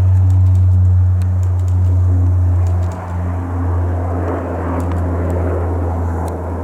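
Jet airliner passing: a steady low engine drone with a rushing noise that builds around the middle and then fades away.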